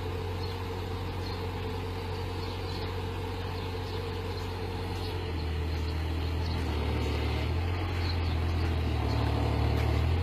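Large engine running with a steady low hum; its pitch shifts a few times and it grows louder over the last few seconds.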